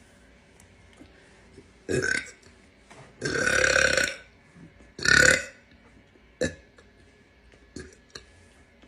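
A woman burping three times: a short burp about two seconds in, a longer and louder one lasting about a second, then another short one, with a few faint short sounds after.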